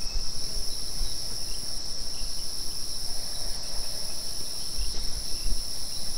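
Steady night-time chorus of crickets, a continuous high-pitched trilling. A low rumble on the microphone runs underneath and swells briefly about five seconds in.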